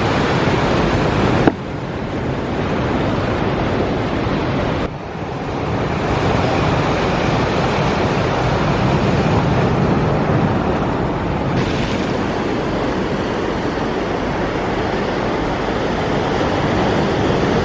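Ocean surf washing against rocks, a loud, steady rush with wind on the microphone. The sound drops abruptly and picks up again twice, about one and a half seconds in and about five seconds in.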